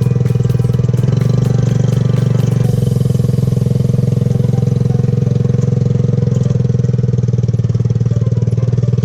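Motorcycle engine of a three-wheeled motorcycle taxi running at a steady speed, heard from on board.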